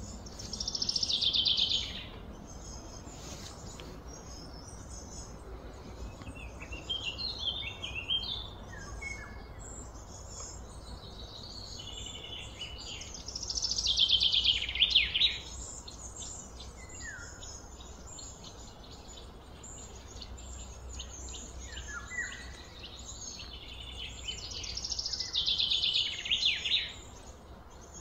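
Wild birds calling: three loud, rapid trilled phrases about twelve seconds apart, with short chirps and brief falling whistles between them, over a steady high insect buzz.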